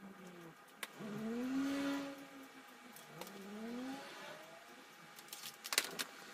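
A motor vehicle's engine revving, its pitch rising and falling in a long sweep that is loudest about a second and a half in, then rising again briefly near four seconds, over a faint steady hum.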